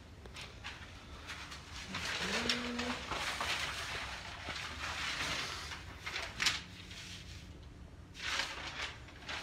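Sheet of kraft paper rustling and crinkling as hands spread and smooth it flat, with a sharper crackle about six and a half seconds in.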